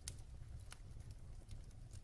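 Wood fire burning in a fireplace: a few faint, scattered crackles over the low, steady rumble of the flames.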